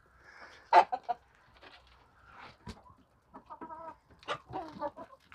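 Hens clucking in short separate calls: one loud call about a second in, then a quicker run of clucks in the last couple of seconds.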